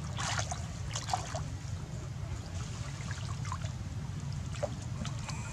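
Water splashing and lapping as young macaques swim and paddle in a shallow pool, small splashes thickest in the first second and a half, over a steady low rumble.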